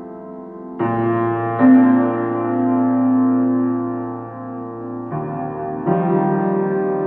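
Slow piano music of held chords, with new chords struck about a second in, again shortly after, and twice in the second half.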